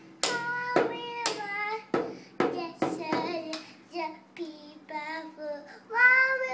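A toddler singing in a high, wavering voice while beating a toy drum with a wooden drumstick, about two strikes a second; the drumming stops about halfway through and the singing goes on alone.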